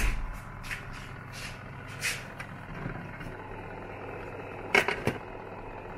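Electric food dehydrator's fan running with a steady hum. A few light knocks and two sharp clicks about five seconds in, from the plastic trays and lid being handled.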